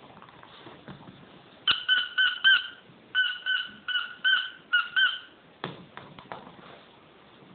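Puppy yipping: about eleven short, high yips in two quick runs of three or four a second, followed by a few soft knocks.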